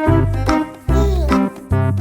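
Background music: a bouncy keyboard tune over a bass line, with notes changing about twice a second.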